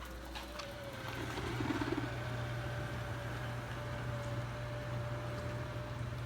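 Robotic vacuum cleaner running: a steady motor hum with a thin steady whine over it, stepping up in level a moment after a few clicks at the start.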